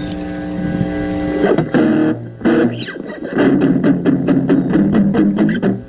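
Electric guitar played with a distortion effect: a held chord ringing for about a second and a half, a couple of single strums, then a fast run of quick repeated strums.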